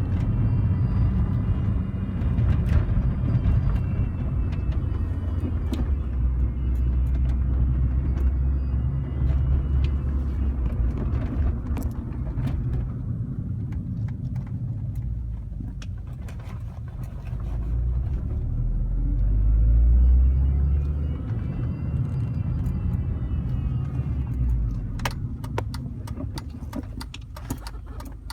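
2005 Mini Cooper S driving, with low engine and road rumble and a faint high whine that rises and falls as the car accelerates and eases off, twice. This is the strange "electrical" noise the owner hears under acceleration. A run of sharp clicks comes near the end.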